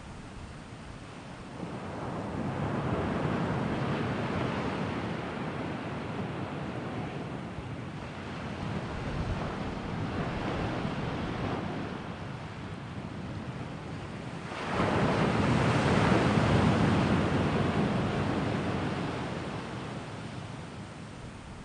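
Sea waves washing in and drawing back, in slow surges that swell and fade; the loudest rolls in sharply about two-thirds of the way through.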